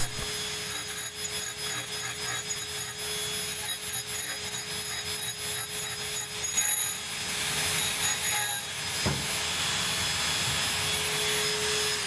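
Dremel rotary tool running with a grinding bit against the steel teeth of a dull hole saw, squaring their faces to sharpen them: a steady motor whine over a hissing grind.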